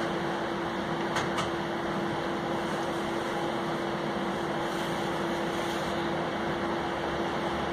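Steady interior hum of a Bombardier Flexity Outlook low-floor streetcar: its ventilation and electrical equipment run as one constant tone over an even rush, with two faint clicks about a second in.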